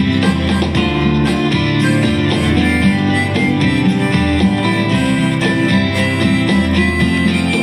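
Acoustic guitar strummed steadily, playing a country-style tune.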